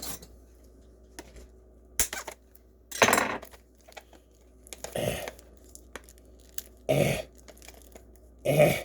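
New plastic DVD case being handled and pried at, with a sharp click about two seconds in. Four short, throaty, burp-like vocal sounds come roughly every two seconds.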